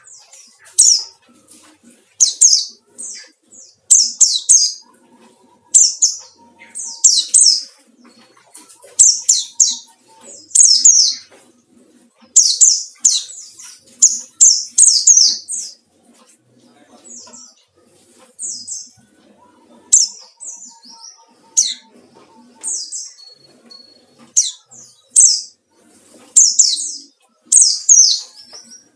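White-eye (pleci) singing: rapid, high-pitched chirping phrases repeated in bursts with short pauses between them. This is the wild-type 'ngalas' challenge song, used as a lure to provoke other white-eyes into singing.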